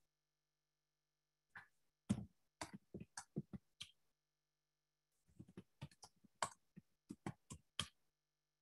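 Keys of a computer keyboard clacking in two short runs of typing, about three or four strokes a second, with a pause between them.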